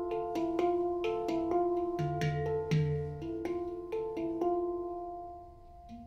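Percussion ensemble improvisation played back through floor-standing hi-fi loudspeakers: struck pitched percussion whose notes ring on and overlap, with a quick run of strikes. The ringing thins out and dies down near the end.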